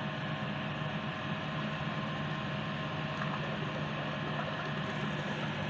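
Ozone generator running with its air blowing through, a steady hum with an even hiss: the repaired unit is working.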